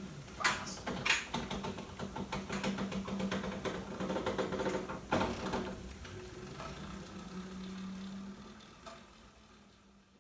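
Electric ride-on mower driving: a steady electric motor hum with clicks and rattles from the machine, fading out near the end.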